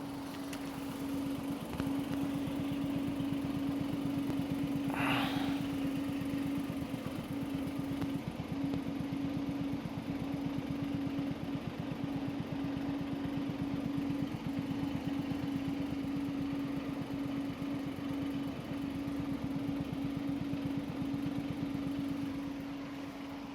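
A steady hum with a rapid, even ticking or knocking from under the right rear wheel arch of a parked Skoda Octavia A7. The owner links it to a hard landing at speed that he thinks bottomed the suspension, and says it is not the exhaust. A brief higher-pitched sound comes about five seconds in.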